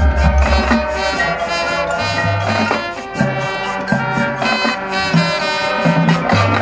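Marching band playing: brass and woodwinds holding full sustained chords over pit percussion and a deep, pulsing bass line.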